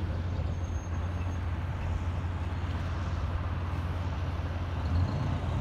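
Diesel semi-truck engine running steadily, a low rumble with no clear revving.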